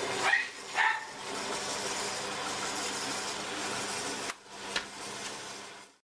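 Two short, loud calls about half a second apart near the start, over a steady hum, with one more sharp sound after a sudden cut just past four seconds in.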